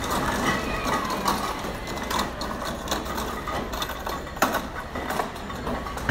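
Grilled lobster shell crackling and snapping as hands pull it apart, with irregular small cracks and one sharper snap about four and a half seconds in, over a steady low background hum.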